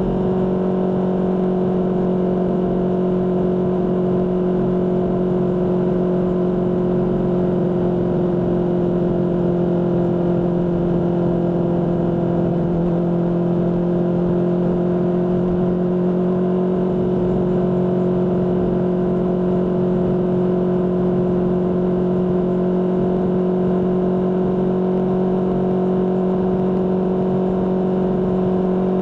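Honda CBR600RR's inline-four engine through a Mivv aftermarket exhaust, running at steady revs under way, with one constant, fairly high engine note.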